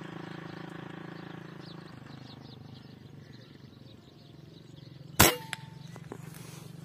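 A single shot from a P10 PCP air gun: one sharp crack about five seconds in, followed by a short ring and a faint click. A low steady hum sits underneath.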